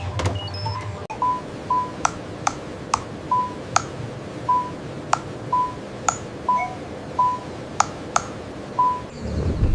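Short electronic beeps, all at one pitch, about a dozen in an uneven sequence, with several sharp clicks between them over a steady low background hum.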